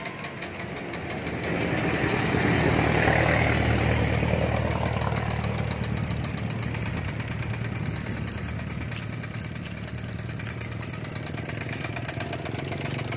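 A small engine running steadily with a fast even rattle, growing louder about two seconds in and then easing back.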